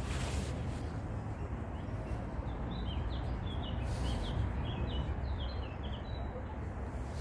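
A string of short, quick bird chirps over a steady low background rumble.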